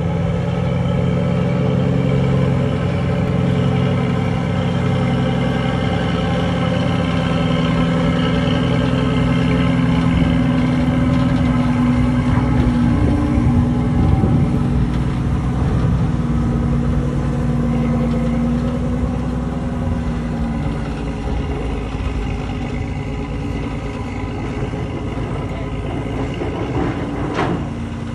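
Diesel engine of a loaded dump truck working hard as it drives up through deep sand, a steady low drone whose pitch shifts a little as the revs change. A brief sharp sound near the end.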